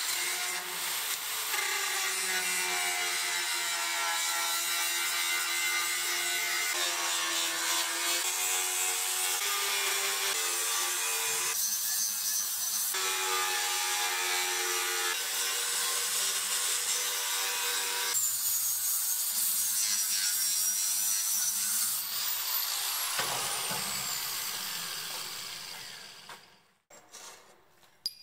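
Angle grinder grinding a steel bar held in a vise: a steady high whine with a grinding hiss. It lets up for about a second just before halfway, then goes on. Later the grinder is shut off and winds down with a falling whine, fading out a couple of seconds before the end.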